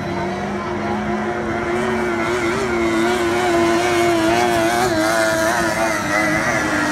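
Outboard motors of 50 hp tunnel-hull race boats running flat out: a high engine whine from several boats, its pitch wavering, growing louder as they come closer.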